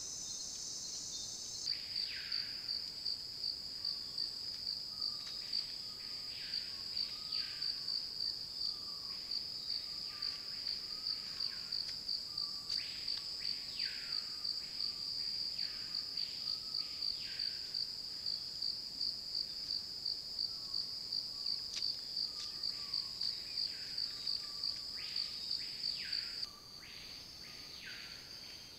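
Forest insects trilling in a steady, high, pulsing chorus, with many short falling calls over it. The chorus changes abruptly near the end.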